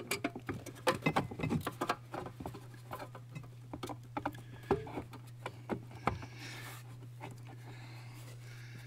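Plastic electronic module and its wiring harness connectors being handled and fitted back into place under a dashboard: a run of irregular light clicks and taps, thinning out after about six seconds.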